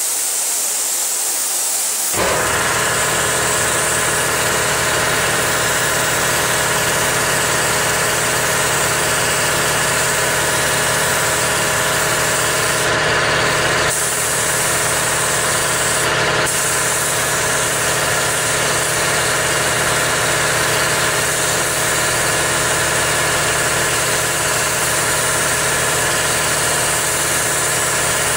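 An engine or motor starts about two seconds in and runs steadily, over a continuous high hiss that cuts out briefly twice.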